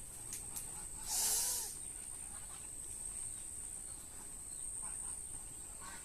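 Insects trilling steadily at a high pitch in the farm background, with a short hissing rush about a second in.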